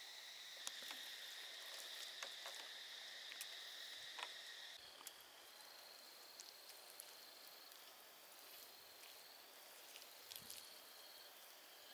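Faint outdoor insect chorus, a steady high buzz that shifts to a slightly different pitch about five seconds in, with scattered soft clicks and taps.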